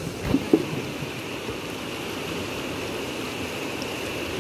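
Shallow river water rushing steadily over rocks, with a couple of short knocks about half a second in.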